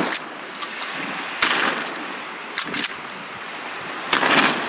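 Small waves lapping against an icy lakeshore, a steady wash with louder splashes every second or so.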